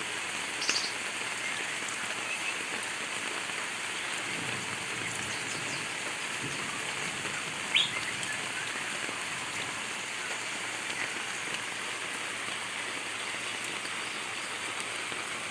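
Steady heavy rain falling, with two short, high bird chirps, one about a second in and a louder one near the middle.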